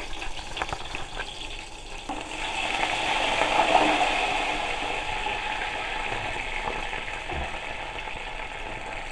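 Water pouring in a stream into a large aluminium pot of hot palm oil and onions, a steady splashing hiss. A few light clicks come first; the pour swells about two seconds in and then slowly eases off.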